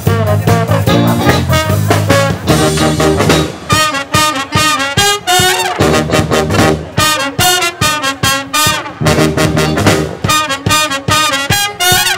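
Brass band playing an upbeat tune: trumpets, trombone, saxophone and tuba over a steady drum beat. The low bass part drops out for a couple of seconds about four seconds in, then comes back.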